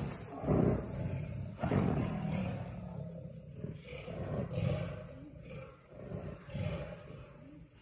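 Male Bengal tigers growling in a string of short bursts. The two loudest come in the first two seconds, and the rest are fainter and about a second apart.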